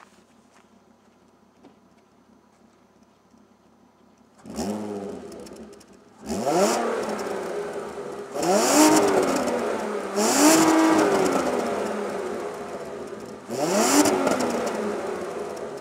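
Volkswagen Golf Mk4 2.8-litre V6 petrol engine on its standard exhaust, heard at the twin tailpipes: a quiet idle for about four seconds, then the throttle is blipped five times, each rev rising in pitch and falling back towards idle.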